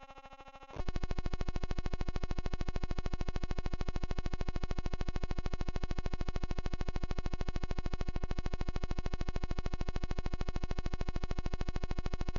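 A steady synthetic electronic buzzing tone. About a second in it jumps much louder and shifts pitch, then holds unchanged.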